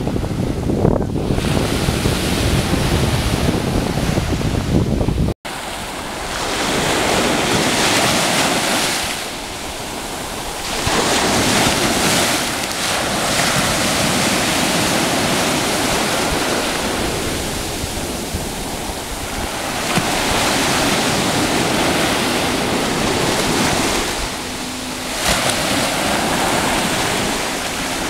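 Sea surf breaking and washing up the beach, swelling and easing every few seconds. For the first five seconds a low wind rumble on the microphone dominates, ending in an abrupt cut.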